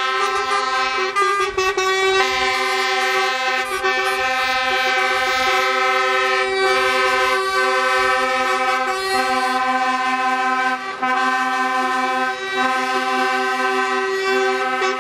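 Truck air horns blaring almost without a break as a convoy of lorries passes, several horns sounding together in a steady chord. The sound dips briefly about a second in and again around eleven seconds in.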